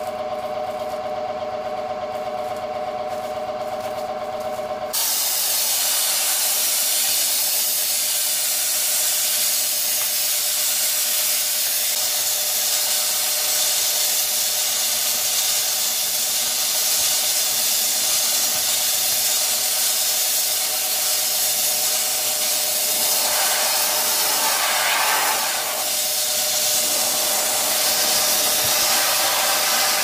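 Air compressor motor running with a steady hum; about five seconds in, a homemade bottle sandblaster opens up with a loud, steady hiss of compressed air and sea sand blasting a glass panel, the compressor still humming underneath. The hiss grows brighter for a few seconds near the end.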